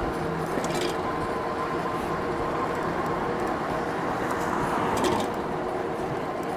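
A Cyrusher Ranger e-bike under way: steady road and riding noise with a faint motor whine, and a couple of sharp metallic rattles, about a second in and near five seconds. The rattling is a metal coffee mug knocking against the frame, not anything loose on the bike.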